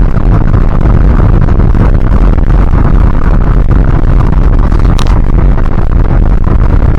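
Loud, steady rumble of a moving vehicle, heavy in the lows and near overload, with a brief high click about five seconds in.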